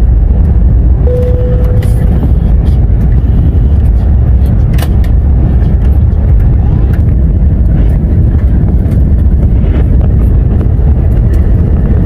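Passenger jet cabin noise: a loud, deep, steady rumble of the engines and airflow.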